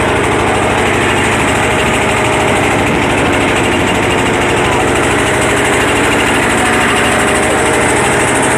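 A small engine running steadily at an even speed, with a fast low throb.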